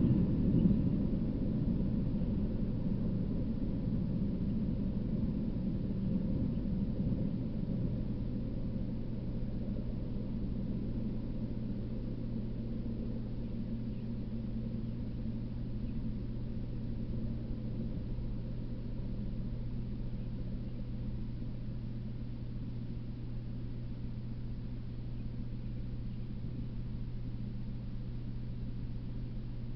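Low rumble, loudest at the start and fading over the first several seconds, then settling into a steady low hum.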